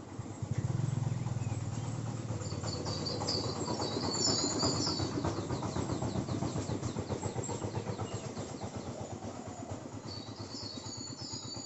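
Woodpecker pecking at wood, a fast, steady run of knocks that goes on throughout, with another bird's high chirping calls twice over it.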